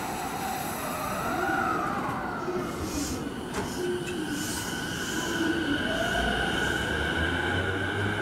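JR East E233-series electric train starting to pull out of the platform. A steady high whine sets in a few seconds in, and a low rumble builds near the end as the train gets moving.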